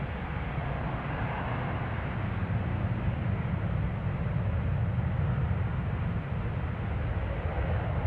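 Airbus A330-200 jet engines at takeoff power as the airliner departs: a steady, rumbling jet roar, heaviest in the low end, growing slightly louder.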